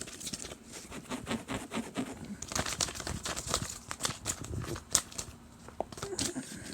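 Crinkling and rustling, with many small sharp crackles and clicks coming thick and fast, most densely in the second half.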